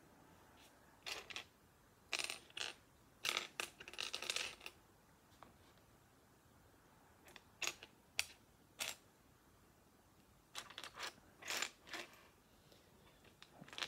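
Plastic Lego bricks clicking and clattering as they are handled and sorted, in scattered clusters of sharp clicks with short pauses between.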